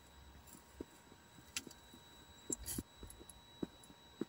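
Faint, irregular clicks and light knocks, about five of them, with the loudest short cluster a little past halfway, from the homemade camera microscope being handled as its threaded focusing screw is turned to move the camera up and down.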